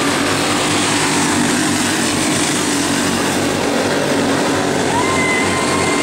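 Box stock racing kart engines running at speed on a dirt oval, a steady dense drone. About five seconds in a steady higher tone joins it.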